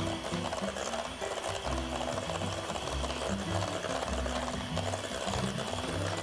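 Electric hand mixer running steadily, its motor whining as the beaters cream butter and sugar in a metal bowl. Background music plays underneath.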